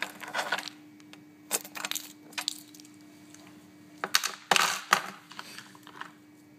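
Small polymer clay charms clicking and rattling against each other and a hard surface as they are picked up and set down, in three short clusters of clicks. A faint steady hum runs underneath.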